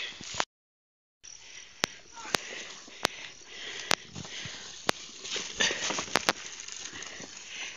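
Bare feet walking over grass and loose stones, with a rustling of handling noise, broken by sharp clicks every second or so. The sound cuts out completely for under a second near the start.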